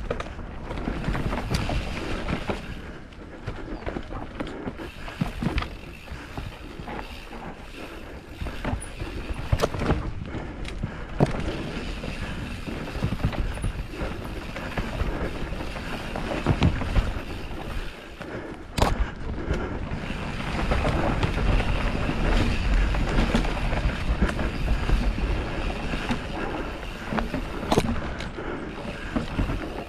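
Mountain bike ridden along a dirt and gravel trail: a steady rush of tyre noise with frequent knocks and rattles from the bike over bumps. Wind buffets the microphone, heavier from about two-thirds of the way through.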